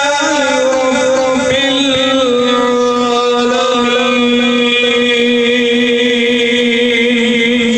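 A man reciting the Quran in the melodic, chanted tajweed style, with ornamented turns in pitch at first and then one long drawn-out note held at a near-steady pitch with a slight waver.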